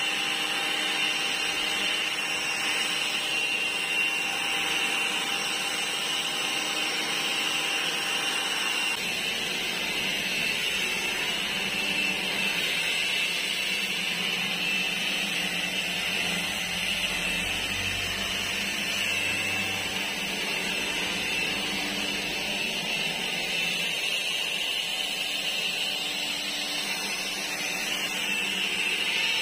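Keelat KEAB002 cordless electric leaf blower running steadily, blowing dry leaves: a rush of air with a steady high-pitched whine from the fan motor.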